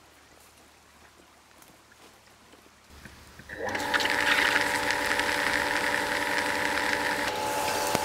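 Quiet forest ambience with a few faint ticks, then suddenly, about three and a half seconds in, overhead micro-sprinklers spraying water in a nursery shed: a loud, even hiss with several steady humming tones under it.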